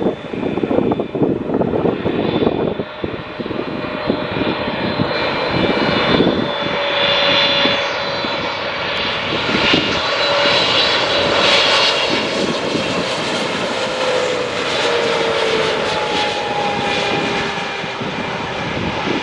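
Boeing 777-300ER's GE90 jet engines on final approach: a steady jet roar with high whining fan tones, with tones that slide down in pitch in the second half as the airliner passes.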